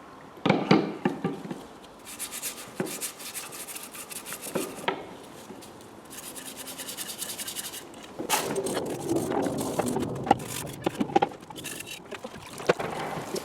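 Scrubbing and rubbing at a cylinder head to clean off black oil build-up: runs of quick scraping strokes and a stretch of hiss, then knocks and clatter of the part and tools in the second half.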